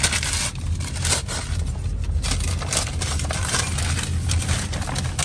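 Paper gift bag and wrapping rustling and crinkling in quick, irregular crackles as a gift is unpacked by hand, over a steady low hum inside a car.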